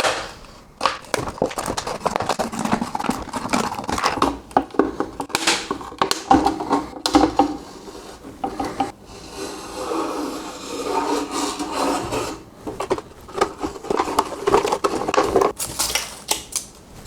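Swiss Army knife blade cutting a PET plastic bottle: uneven scraping and crinkling of the thin plastic, with many small clicks.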